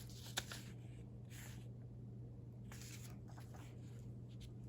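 Faint rustling of paper pages being handled, a few short scuffs and one soft click, over a steady low hum.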